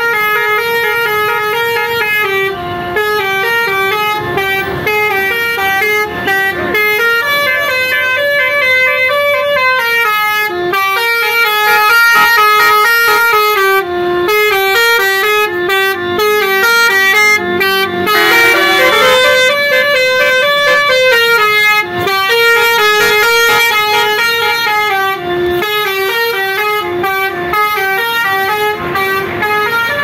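Basuri telolet multi-tone air horns on a tour bus playing a melody, the notes stepping up and down several times a second without a break. A brief harsher, brighter horn passage comes about two-thirds of the way through.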